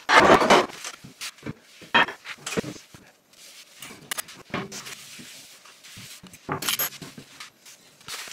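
Kitchen tidying: a loud clatter of crockery in a dishwasher rack at the start, then scattered knocks and clinks with a brush of cloth wiping a worktop near the end.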